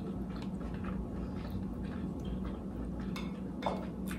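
Quiet chewing and small clicks of eating, over a low steady room hum, with one slightly louder tick near the end.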